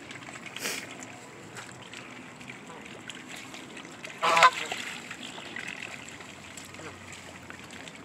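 Canada goose giving one loud honk about four seconds in, short and nasal, over a steady low background.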